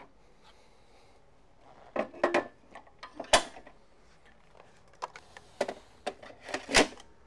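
A string of separate knocks and clunks from the parts of a taken-apart power wheelchair being handled and set down, the sharpest about three seconds in and another loud one near the end.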